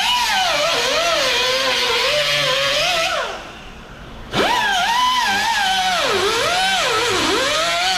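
Air-powered cut-off tool cutting through a car's sheet-metal rocker panel: a loud high whine that wavers and sags in pitch as the wheel bites into the metal. The tool winds down a little past three seconds in and starts again abruptly about a second later.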